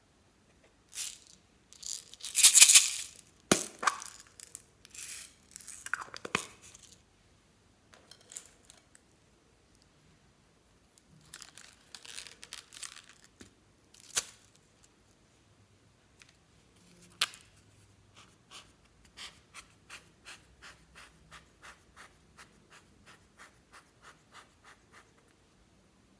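Slime mixed with floam being squeezed and worked by hand, with irregular wet crackling and snapping. Later comes a steady run of short clicks, about two or three a second.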